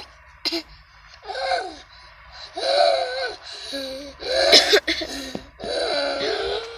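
Little girl laughing in repeated high-pitched bursts, gasping for breath between them.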